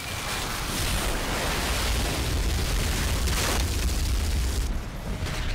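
Oil well blowing out as a gusher: a steady, dense roar of oil and gas rushing up through the derrick, with a heavy low rumble and a brief brighter rush about three and a half seconds in.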